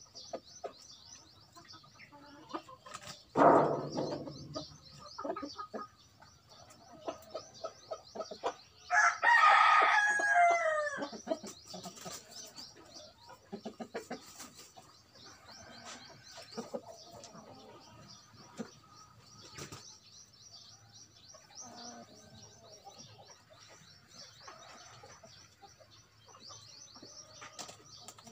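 Ayam kampung (Indonesian native chicken) rooster crowing once, a call of about two seconds that falls away at the end, about nine seconds in. Around it are soft clucks and small clicks, and a loud short thump comes about three and a half seconds in.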